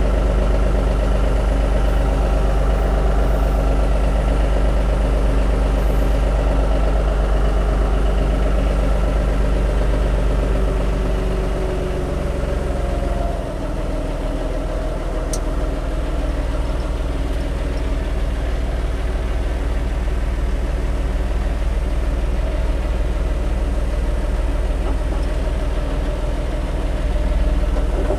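John Deere tractor's diesel engine running steadily as the tractor creeps forward with a heavy load on its front loader; the level dips slightly about halfway through.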